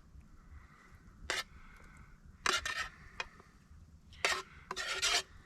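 A cooking utensil scraping and knocking against a frying pan while cooked sausage is spooned out of it: a few short clinks and scrapes, with a longer scrape near the end.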